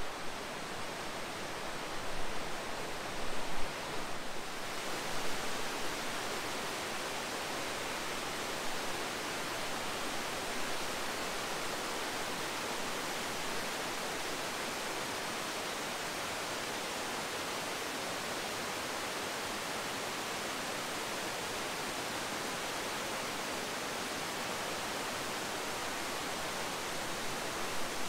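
Bracebridge Falls on the Muskoka River: a steady, even rush of whitewater cascading over rock ledges and pouring out of a dam's spillway gates. A few bumps come in the first four seconds, then the roar holds steady.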